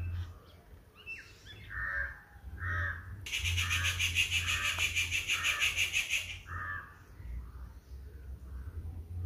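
Crows cawing, a run of about seven caws less than a second apart. In the middle a loud, high, rhythmic buzzing runs for about three seconds, over a low steady hum.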